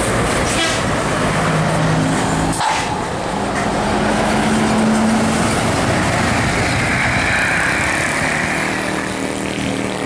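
Large tour buses' diesel engines running as they pull up and pass on a hill road, a steady low engine note under road and tyre noise. The sound changes abruptly about two and a half seconds in, and a higher hiss rises and fades near the end.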